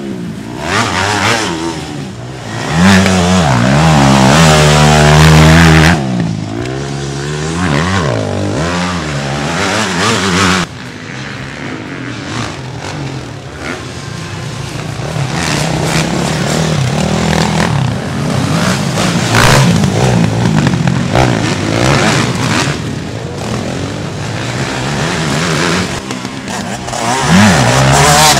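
Motocross bike engines revving hard on a dirt track, pitch rising and falling as the riders open and close the throttle through the corners and jumps. The loudest pass comes a few seconds in, the sound drops suddenly about ten seconds in, and another rising rev comes near the end.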